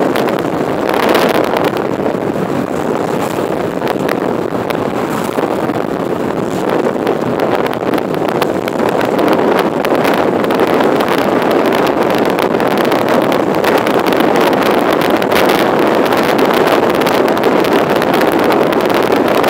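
Steady rushing noise of a car driving on a wet road in rain, heard from inside the cabin, with many faint ticks through it.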